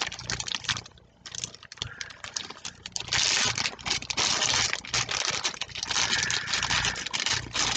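Clear plastic bag crinkling and rustling as it is handled and pulled open, with scattered crackles at first, then steady and louder from about three seconds in.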